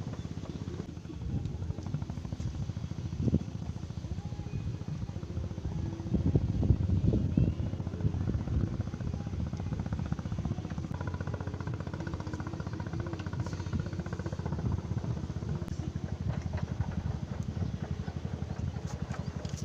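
A motor running steadily with a fast, even low pulse, louder for a couple of seconds about six seconds in.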